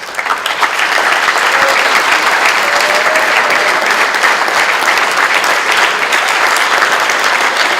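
Audience applauding, steady and sustained, breaking out right after the speech ends.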